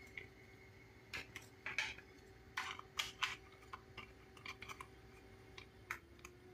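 Hard plastic parts of an RC car chassis clicking and knocking as a plastic cover is fitted and pressed into place by hand, in irregular sharp clicks. A faint steady hum underneath.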